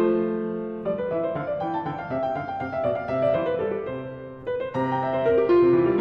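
Background piano music, single notes and chords following one after another.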